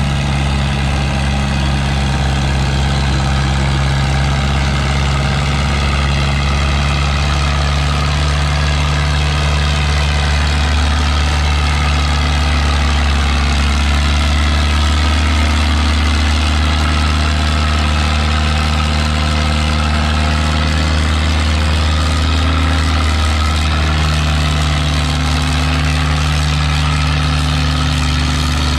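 An antique tractor's engine running steadily and loudly, its pitch shifting slightly a couple of times.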